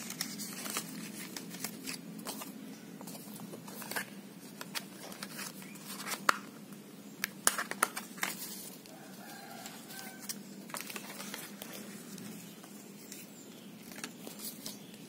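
Paper and thin cardboard being handled: the phone box's folded card insert and leaflet opened and leafed through, giving scattered crisp clicks and rustles, with a cluster of sharper snaps about six to eight seconds in, over a steady low hum.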